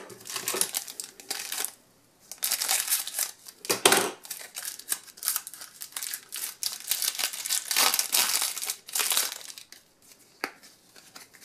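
A Match Attax booster pack's foil wrapper being torn open and crinkled by hand, in several spells of rustling with short pauses between them. It quietens near the end, apart from one sharp click.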